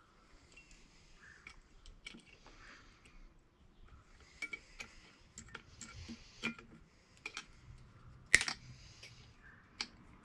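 Scattered light metallic clicks and ticks of a cotter pin being fitted through the castle nut on top of an ATV steering stem. One sharper click comes about eight seconds in.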